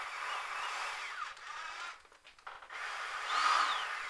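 Small electric drill boring holes in a plastic controller case: the motor runs with a wavering whine that rises and falls, stops about two seconds in, and starts again for a second hole.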